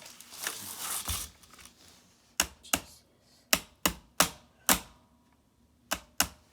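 Rustling handling, then about eight sharp, irregular clicks and taps of small hard parts and tools knocking together as an RC car's wheel and axle assembly is worked on by hand.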